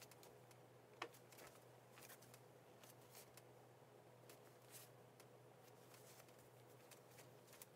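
Near silence: room tone with a low steady hum, and faint scattered rustles and light clicks, one sharper click about a second in.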